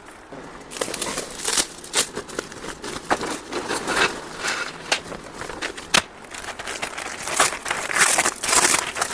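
Irregular crinkling and rustling with scattered sharp clicks, from parts and material being handled.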